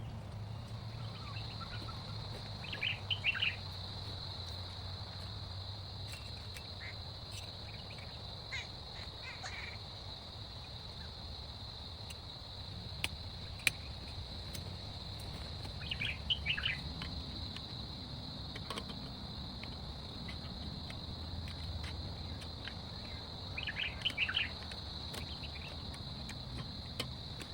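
Forest ambience: a steady high-pitched insect drone, with short bursts of bird chirps four times and a few scattered sharp taps over a low rumble.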